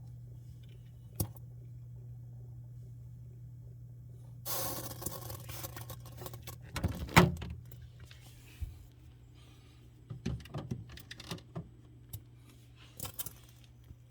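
Samsung Bespoke refrigerator running with a steady low hum. A sharp click comes about a second in. From about four and a half seconds there are a few seconds of rustling and knocking, with one loud knock near seven seconds, then a scatter of small clicks.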